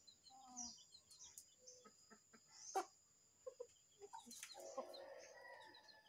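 Faint clucking of domestic chickens, with short high bird chirps scattered through and one sharp click near the middle. A steady high whine runs underneath and stops a little after four seconds in.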